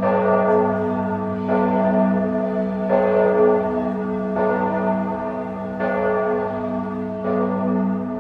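Cathedral bells ringing, a new strike about every second and a half, six in all, each ringing on into the next over a steady low hum.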